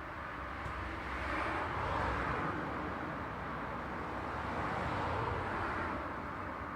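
Road traffic: tyre and engine noise from passing cars, swelling twice as vehicles go by, about two seconds in and again about five seconds in.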